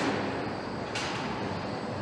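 Steady truck assembly-plant machinery noise, with a sharp clank right at the start and another about a second in.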